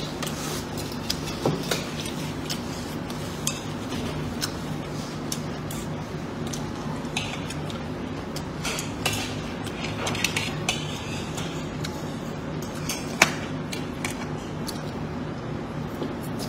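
A fork and spoon clinking and scraping against a plate now and then as a meal is eaten, the sharpest clink about 13 seconds in, over a steady low hum.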